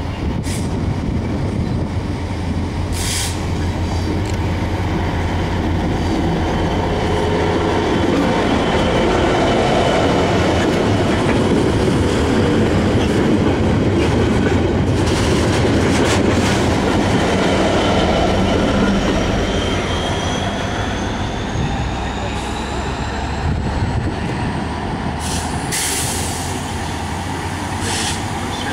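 Class 66 diesel-electric locomotives (EMD two-stroke V12 engines) hauling a railhead treatment train of tank wagons past: the leading locomotive's engine drone, then the wagons' wheels rumbling over the rails, loudest midway through. Thin high wheel squeals that rise and fall in pitch come in during the second half as the rear locomotive nears.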